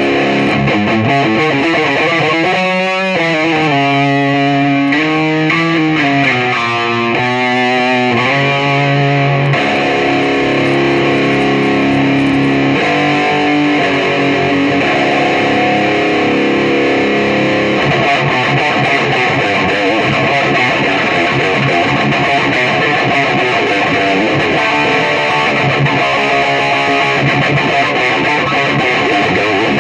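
Electric guitar played through a Peavey Bandit 112 solid-state 1x12 combo amp: held single notes with bends and vibrato, then steady chord strumming from about eighteen seconds in.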